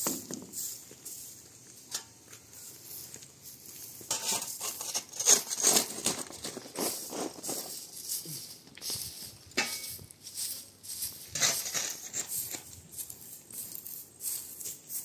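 Irregular rustling and scraping strokes, quieter for the first few seconds and then louder and busier from about four seconds in.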